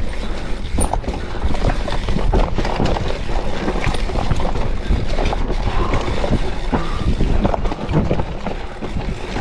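Hardtail mountain bike clattering down a rough, rooty trail at speed: a dense, irregular run of knocks and rattles from the frame and chain over the bumps, with a steady wind rumble on the microphone.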